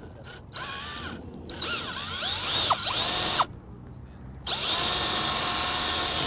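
Cordless drill drilling out a broken screw, run in three bursts with short pauses between them. The motor whine wavers up and down in the middle burst as the bit catches, then holds steady through the last and loudest burst.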